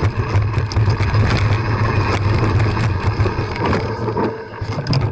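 Mountain bike riding over a rocky dirt trail, heard from a camera on the rider: a steady low rumble of wind and rolling tyres with frequent clattering knocks as the bike rattles over stones. The sound eases off near the end.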